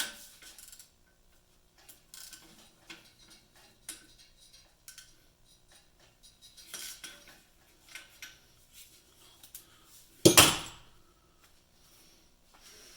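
Metal tools and parts being handled, with scattered light clinks and clicks and one much louder metallic clatter about ten seconds in.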